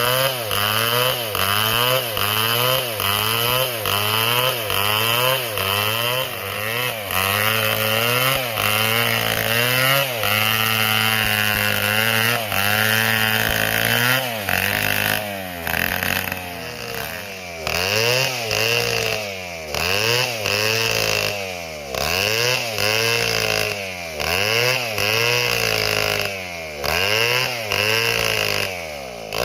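Large two-stroke chainsaw, sold as a Stihl MS 720, revving up and down over and over, about one to two swings a second. Its pitch holds high and steady for a few seconds near the middle, then dips deeper and more slowly in the second half.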